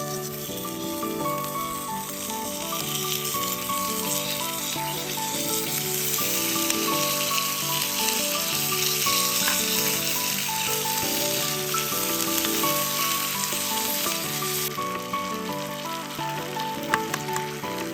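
Food sizzling and crackling in a frying pan, over background music. The sizzle drops away suddenly about fifteen seconds in, leaving mostly the music.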